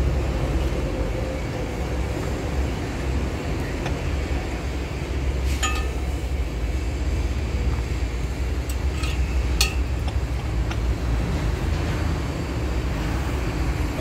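Concrete mixer truck's diesel engine running with a deep, steady rumble, with a few sharp metallic clinks around the middle.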